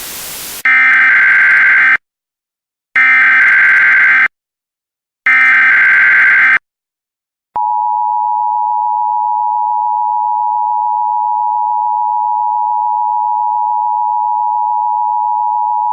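Emergency Alert System SAME header: three harsh, buzzy data bursts of just over a second each, with a second of silence between them. About halfway through comes the steady two-tone EAS attention signal, which holds on unbroken.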